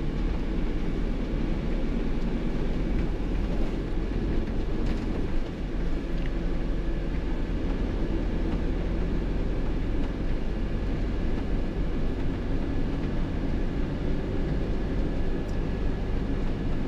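Motorhome driving along, heard from inside the cab: a steady low rumble of engine and road noise with no sudden events.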